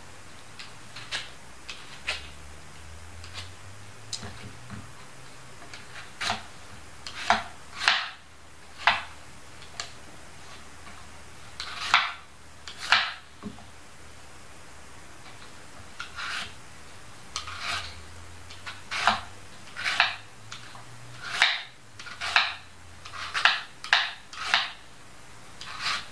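Small kitchen knife peeling a plantain: short scraping strokes of the blade against the peel, coming irregularly and more thickly in the second half.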